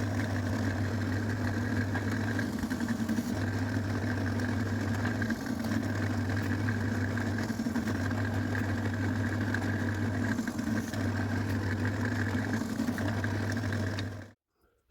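Electric motor of a workshop power tool running steadily with a low hum, cutting off suddenly near the end.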